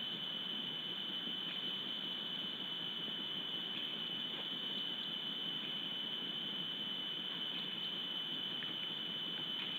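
Outdoor ambience from a forest webcam microphone: a steady high-pitched whine over an even hiss, with a few faint short ticks scattered through it.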